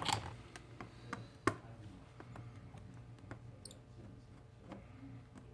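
Small repair tools clicking and tapping against the parts of an opened Samsung Galaxy S6 during charge-port removal: scattered light clicks, the sharpest near the start and about a second and a half in, over a low steady hum.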